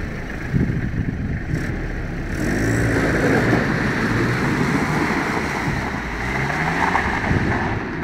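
Toyota KZJ73's 3.0-litre turbodiesel engine pulling the truck through shallow river water, working harder and louder from about two seconds in, with water splashing and churning around the wheels.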